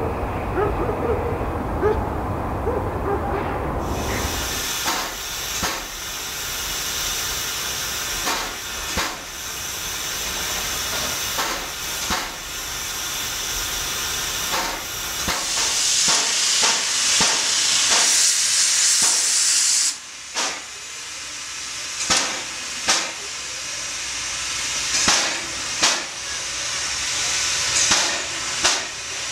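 LV-class 2-10-2 steam locomotive hissing steam, with short sharp puffs and clanks every second or two. A low rumble fills the first few seconds, and about halfway through a louder, higher hiss of escaping steam swells for several seconds before cutting off suddenly.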